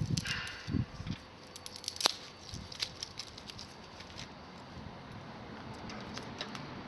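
Small twig campfire with a few knocks and thumps at the start, a sharp snap about two seconds in, then scattered small crackles.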